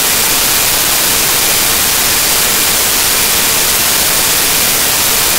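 Loud, steady static hiss like white noise, spread evenly from low to high pitch without any tone or rhythm.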